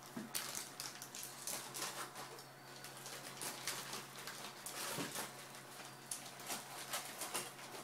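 Plastic parts bags rustling and crinkling, with small taps and knocks, as drone frame parts are packed back into a cardboard box: a steady run of irregular crackles with no rhythm.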